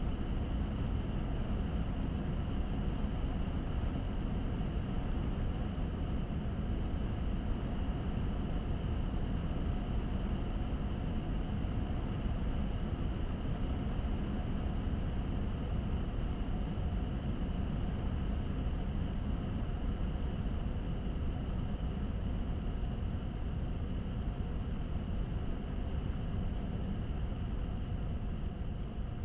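Steady underwater ambient noise picked up by a submerged camera: a constant low rumble with hiss above it and faint steady tones running through, unchanging throughout.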